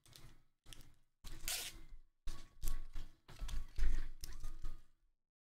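Handling noise of trading cards and foil pack wrappers on a tabletop: irregular rustling, scraping and light knocks, stopping about five seconds in.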